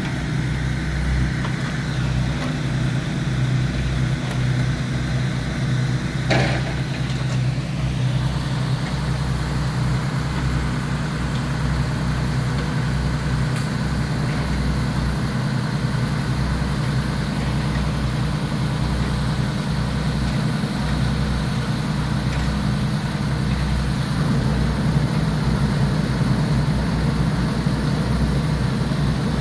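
Engine of heavy work equipment idling steadily, with one short clank about six seconds in.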